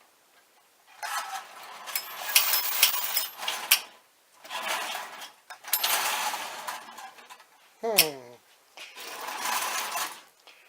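Marx No. 400 wind-up toy train engine running on three-rail O-gauge track, its clockwork motor whirring and its wheels clattering on the rails. The sound swells and fades three times.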